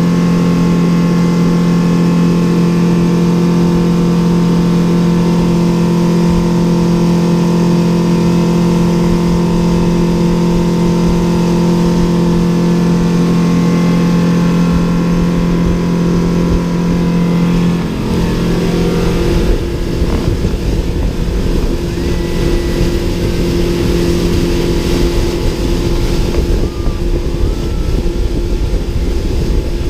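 Speedboat engine running under way with a steady, loud drone. About two-thirds of the way through, the engine note changes and a rougher, noisier rumble takes over.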